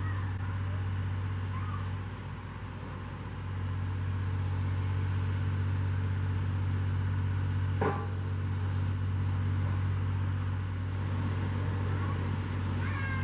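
Steady low drone of a truck-mounted hydraulic auger rig running as its LoDril auger drive bores down into the ground. It eases off briefly about two seconds in, and there is a single sharp knock about eight seconds in.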